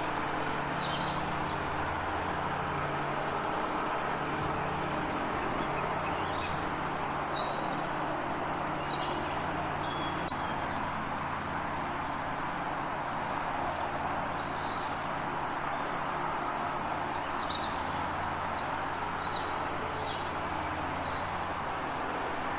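Several birds chirping and calling in short scattered phrases over a steady low hum and a constant rushing background.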